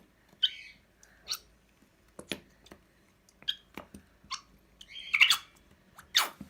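Thick slime gel squeezed and poured out of its container into a bowl, giving a string of wet squelches and sticky pops, the loudest about five seconds in.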